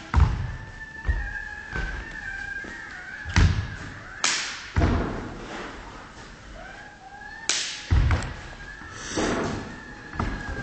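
Thuds of bare feet or shoes stamping and landing on a wooden sports-hall floor during a Shaolin kung fu form, several heavy impacts at irregular intervals.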